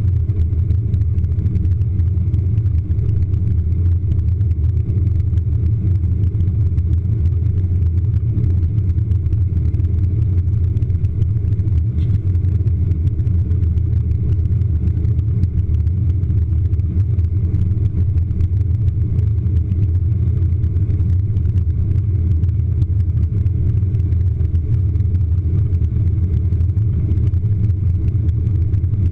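Steady low rumble of an airliner's jet engines and rushing air, heard inside the cabin while climbing after takeoff.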